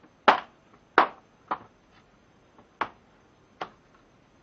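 Plastic tool case being worked open by hand: five sharp clicks and knocks of the hard plastic lid and latches, the first two loudest.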